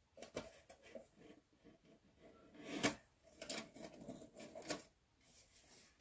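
Metal knocking, rattling and scraping as a stuck power supply is wiggled and yanked against a steel desktop computer case without coming loose; the loudest knock comes about halfway through.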